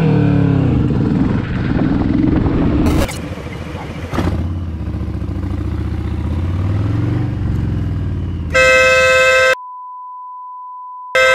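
Motorcycle engine running, its pitch rising and falling, with an abrupt change about three seconds in. Near the end a vehicle horn blasts for about a second. A steady single-pitch censor bleep replaces all other sound for a second and a half, then the horn sounds again briefly.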